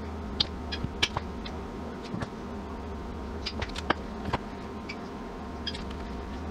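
A steady low hum with scattered light clicks and taps as a metal measuring cup and plastic syrup bottle are handled over a saucepan while corn syrup is poured.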